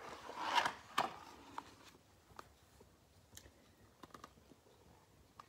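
A picture-book page being turned: a short paper rustle ending in a sharp flap about a second in, then a few faint ticks.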